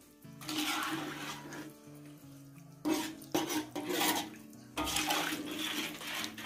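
Chicken pieces being stirred through thin coconut milk in a wok with a metal spatula: the liquid sloshes and swishes in about four separate strokes with short pauses between them. Faint background music plays underneath.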